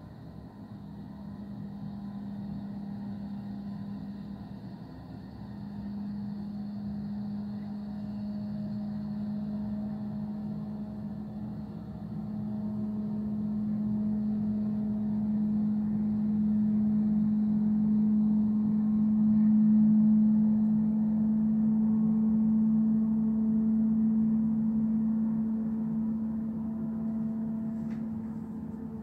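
A steady engine drone, one held humming tone with overtones, growing louder to its peak about two-thirds of the way through and then fading somewhat.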